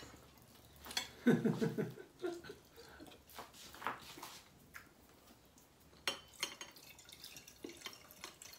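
Red wine poured from a bottle into a wine glass in the second half, with small clicks of glass and table things around it.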